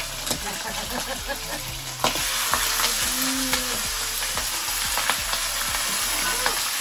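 Pieces of meat sizzling and frying in a metal pan over a wood fire, stirred with a ladle that clicks against the pan. The sizzle gets louder about two seconds in.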